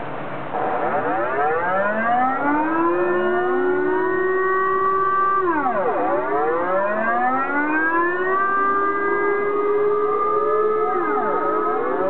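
Several civil defence air raid sirens start about half a second in and wail slightly out of step with one another. They rise, hold, fall together near the middle and rise again. This is the monthly first-Monday noon siren test.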